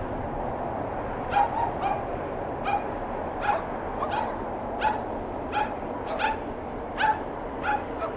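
A dog barking, about ten short high yaps roughly one a second, starting about a second in, over the steady distant rumble of a departing Boeing 787-8's jet engines.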